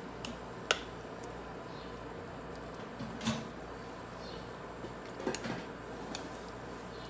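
A metal spoon clinking a few times against a stainless steel pot as the soup ingredients are stirred, the sharpest clink about a second in, over a steady low hum.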